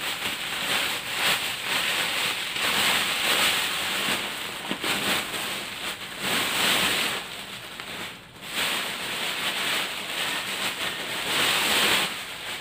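Thin clear plastic bag crinkling and rustling as it is handled and clothes are pulled out of it, with a brief lull about eight seconds in.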